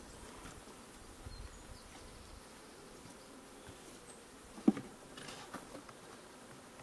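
Honeybees buzzing faintly around an opened hive, with one sharp knock about two-thirds of the way through, followed by a few light clicks, as the wooden hive box is handled.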